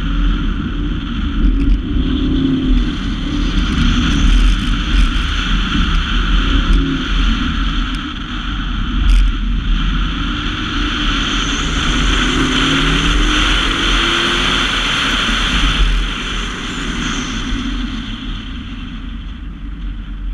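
A car's engine revving up and down as the car is driven hard, heard from inside the cabin over steady road and wind noise. The engine eases off about sixteen seconds in.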